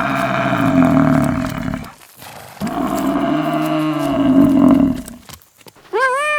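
Cow mooing: two long, low moos of about two seconds each. Near the end a shorter, higher call begins, rising and then falling in pitch.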